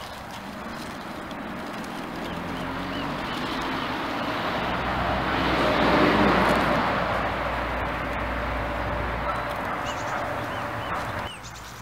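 A passing vehicle's noise swells to a peak about halfway, then fades, over a steady low hum, and cuts off abruptly shortly before the end. A few short bird chirps come through near the start and again near the end.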